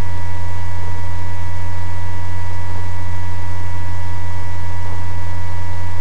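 Loud, steady electrical hum with a constant hiss and a few faint steady higher tones: recording-chain noise with no other sound over it.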